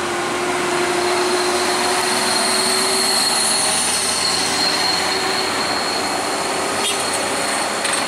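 Passing traffic on a steep mountain hairpin: car and light pickup truck engines and tyres running, with a steady high whine over the top.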